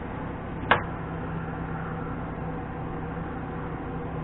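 A single sharp click about three-quarters of a second in, over a steady low hum.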